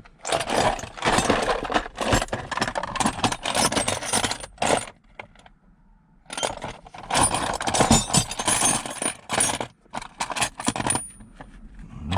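Reciprocating saw (Sawzall) fitted with a badly bent blade, run in two bursts with a harsh metallic rattle and a short pause about five seconds in.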